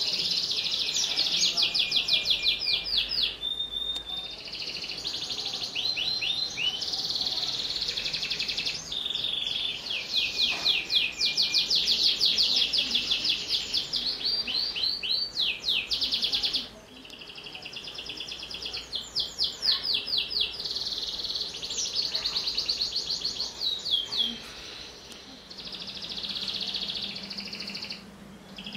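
Domestic canary in full, continuous song: a long run of high, rapid trills of repeated notes, switching from one trill to the next every second or two, with short breaks about two-thirds of the way through and near the end.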